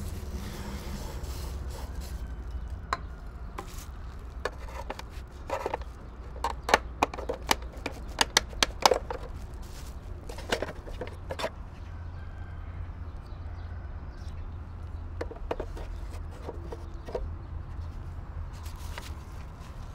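Toyota Yaris door-mirror glass being pried and pulled off its plastic backing clips: a run of sharp plastic clicks and snaps, densest and loudest in the middle, with a few fainter clicks later, over a steady low rumble.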